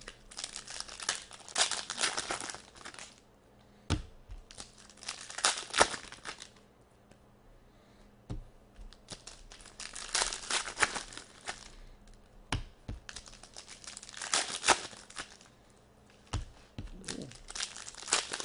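Foil hockey-card pack wrappers crinkling and tearing as packs are opened by hand, in four bursts, with a few sharp taps in between.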